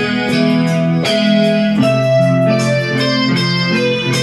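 Electronic keyboard being played by hand: sustained chords with a melody of new notes on top, the bass note moving down a little under halfway through.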